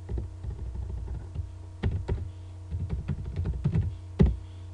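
Keys clicking on a computer keyboard as a word is typed, in short irregular runs, with one louder single click near the end. A steady low hum sits underneath.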